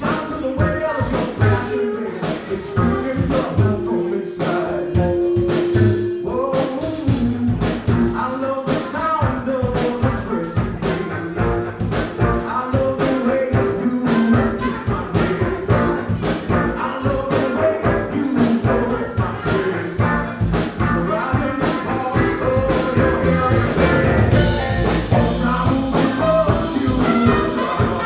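A live band playing a song: singing over drums and other instruments, with a steady beat.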